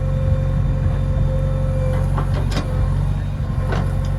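JCB backhoe loader's diesel engine running steadily, with a few short sharp knocks in the second half.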